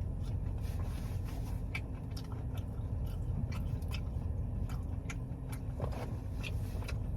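Close-up chewing of fried cheese bites, with many small wet mouth clicks, over a steady low rumble.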